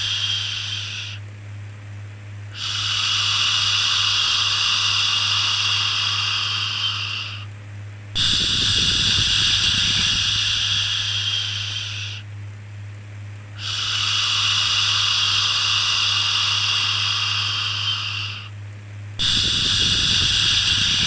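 A soothing 'shhh' shushing sound, repeated as long hushes of about five seconds each with a pause of a second or so between them, over a steady low hum.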